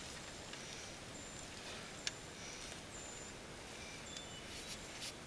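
A utensil stirring pasta in a camp pot, clicking sharply against the pot about two seconds in and again near the end. Faint brief high chirps sound over a quiet outdoor background.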